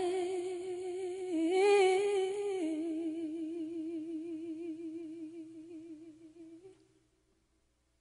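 A single unaccompanied voice holding the last sung note of a line, long and with a slow vibrato, stepping briefly up in pitch and back down before fading out about seven seconds in.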